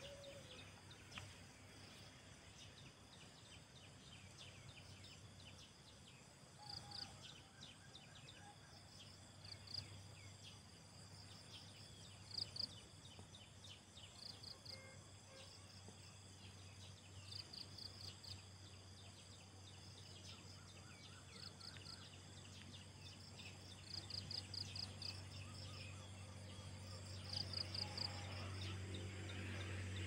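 Faint outdoor field ambience. A short, high-pitched trill of a few rapid notes repeats every two to three seconds, over a steady low hum that grows louder near the end.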